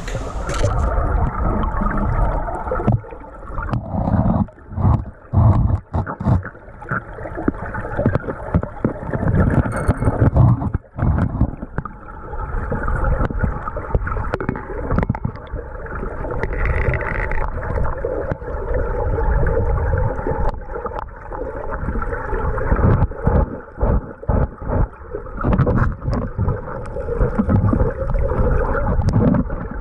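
Muffled gurgling and rushing of creek water heard through a camera held underwater, with irregular knocks and brief dips in level.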